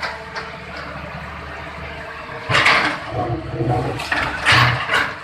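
Excavator demolishing a brick shop: bricks, concrete and rubble crash and pour down twice, about two and a half seconds in and again near the end, over the steady low hum of the machine.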